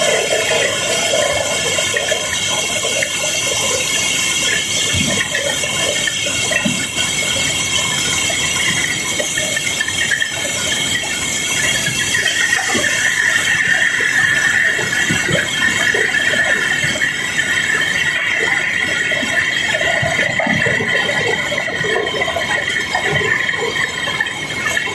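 Cobblestones pouring in a steady rushing, rattling stream during barge unloading, with scattered small knocks of stone on stone and a steady machinery whine underneath.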